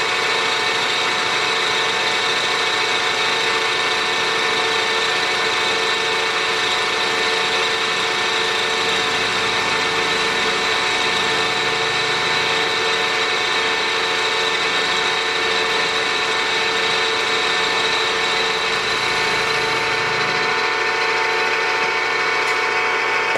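A 3-in-1 lathe-mill's spindle motor and gear drive running steadily with a high whine, during milling passes on a steel backing plate. It shuts off abruptly at the very end.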